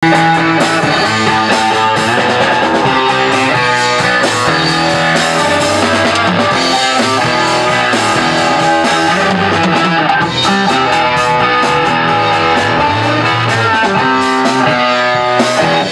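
A rock band playing live in a small room: drum kit with cymbals, electric bass and electric guitar jamming together.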